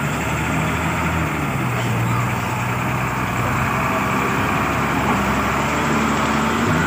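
Heavy diesel truck engine running at low revs close by as the truck moves slowly, a steady low drone that rises and falls a little in pitch.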